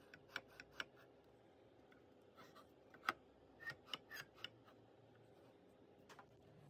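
Light handling clicks and taps of the plywood workpiece against the 3D-printed mortising jig, scattered over near silence, the loudest a single sharp tap about three seconds in.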